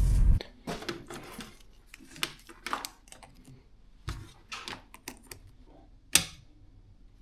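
Irregular clicks, knocks and short scrapes of objects being handled, following a loud steady noise that cuts off suddenly just after the start.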